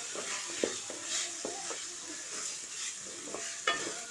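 Chicken pieces frying in onion and masala paste in a pan, sizzling steadily while a spoon stirs them, with a few knocks of the spoon against the pan.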